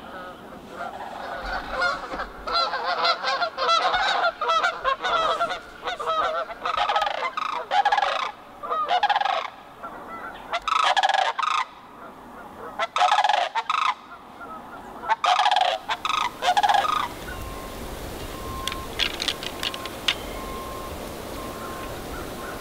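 A flock of sandhill cranes calling in flight: loud, rolling, wavering calls, many overlapping in bouts, that stop about seventeen seconds in.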